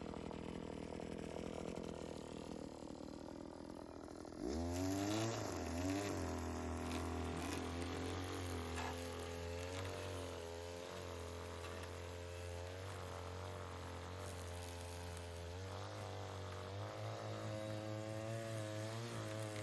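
Small petrol engine of lawn equipment running low and steady, then throttled up about four and a half seconds in, its pitch rising and falling with the throttle as it works.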